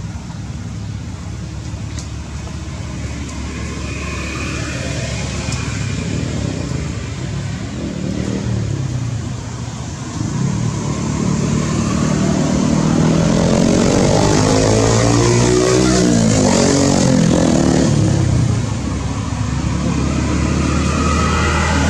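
A motor vehicle's engine running nearby, getting louder about ten seconds in, its pitch sliding up and down, then easing off near the end.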